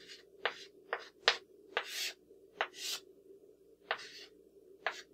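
Chalk writing on a blackboard: a series of sharp taps as the chalk strikes the board, with several longer scratchy strokes as lines and letters are drawn.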